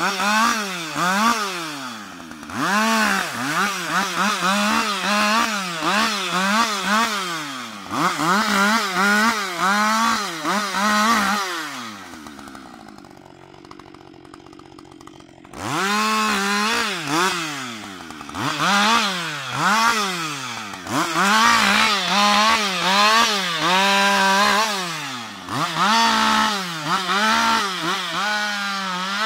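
Husqvarna 560 XP two-stroke chainsaw revved in quick bursts, rising to full speed and dropping back again and again, as it cuts branches off a felled tree. Near the middle it falls to idle for about three seconds, then the bursts resume.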